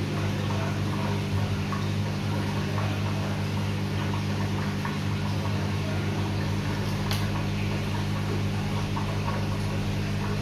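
A steady low machine hum, with faint wet squishing and small clicks from gloved hands handling a poodle giving birth; one sharper click about seven seconds in.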